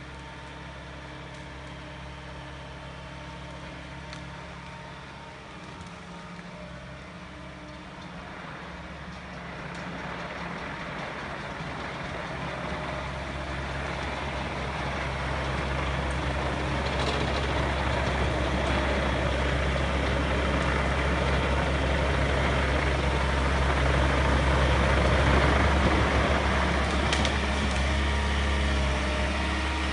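Mecalac tracked excavator's diesel engine running as the machine drives on rubber tracks toward the listener. It starts distant and steady, then grows steadily louder from about a third of the way in, and is loudest near the end as it passes close.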